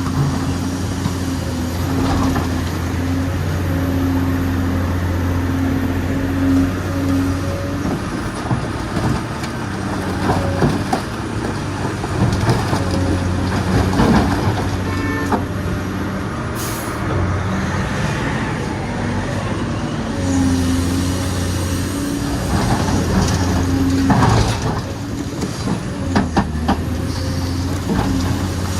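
Recorded sound of a full-size diesel excavator, dubbed over an RC excavator: the engine runs steadily, its pitch shifting as the load changes, with scattered knocks and clatter.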